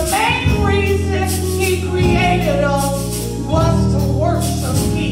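Gospel song sung live by a small group of singers over instrumental accompaniment, with held bass notes and percussion keeping a steady beat.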